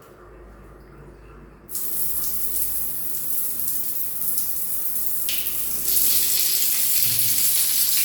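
A water tap turned on about two seconds in, water running steadily from it, the flow growing louder about six seconds in.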